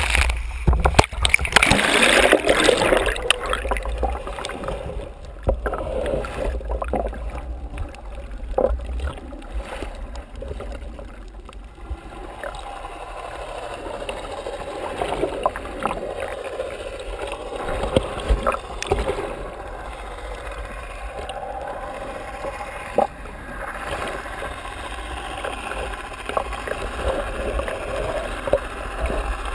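Water splashing as a GoPro in its housing is plunged under the sea surface during the first couple of seconds, then a muffled underwater rumble with gurgling water and a few scattered clicks as the camera is held submerged.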